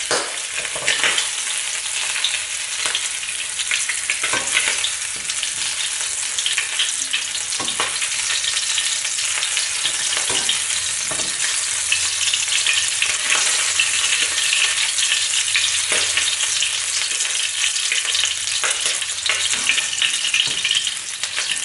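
Shrimp sizzling in hot cooking oil in a wok, a steady sizzle, with a spatula scraping and knocking against the wok every few seconds as it is stirred.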